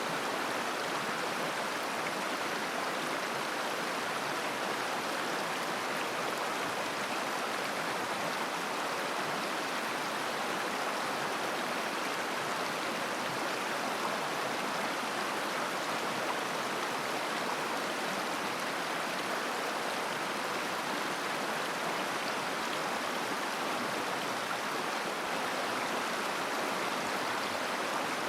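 Mountain river babbling over stones: a steady, even rush of flowing water with no breaks or distinct splashes.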